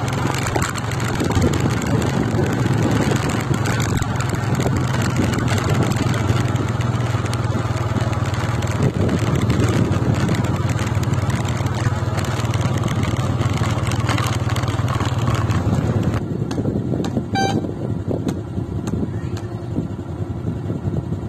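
Motorcycle engine running at a steady cruise on a dirt track, with a rush of wind noise over the microphone. The engine hum drops away about sixteen seconds in as the bike comes to a stop.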